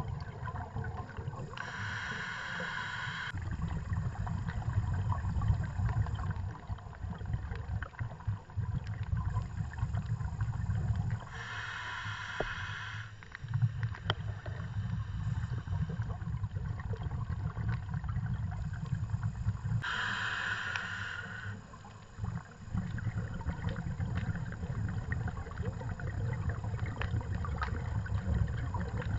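A scuba diver breathing through a regulator, heard through an underwater camera housing. Three hissing inhalations of under two seconds each come about eight to nine seconds apart, with the low rumble of exhaled bubbles in between.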